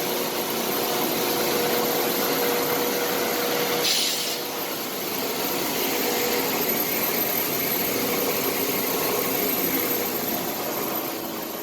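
Wire-chopping machinery running: a loud, steady mechanical noise with a constant hum, and a brief sharper hiss about four seconds in.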